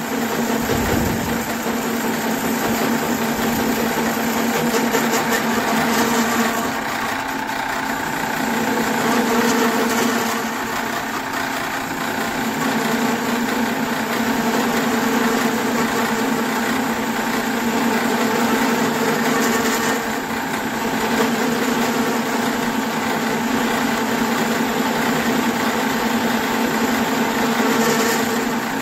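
Sheldon metal lathe running under power: a steady machine hum and gear whine that swells and eases every few seconds. The machine still vibrates a lot.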